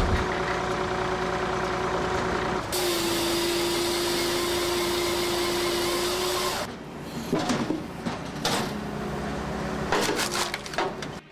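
Heavy machinery engine running steadily with a held whine, dropping away after about six and a half seconds to a quieter stretch broken by several sharp knocks and cracks.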